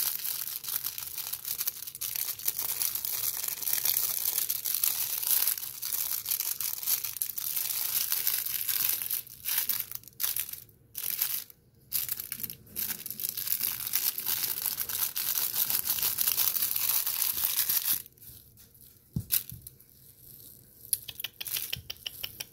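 Dense crinkling and rustling of plastic as a puppy chews and tugs a toy on a crinkly sheet, with a few short pauses midway. It stops about three-quarters of the way through, leaving only faint rustles and ticks.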